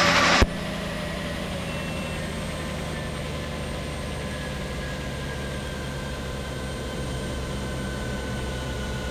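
Helicopter turbine engine and rotor running steadily on the ground, heard from inside the cockpit, with a faint whine that slowly falls in pitch. A louder burst of noise cuts off abruptly about half a second in.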